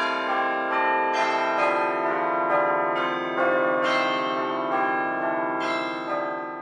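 Bells ringing a peal, each stroke struck about every half second to a second and ringing on under the next, fading away near the end.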